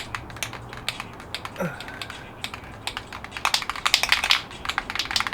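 Rapid, irregular clicking, thickest about three and a half to four and a half seconds in, with a short falling squeak about a second and a half in.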